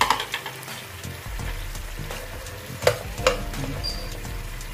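Fried chicken wings sizzling in a fish-sauce and garlic glaze in a nonstick frying pan while being turned with metal tongs. A few sharp clacks of the tongs against the pan, the loudest two about three seconds in.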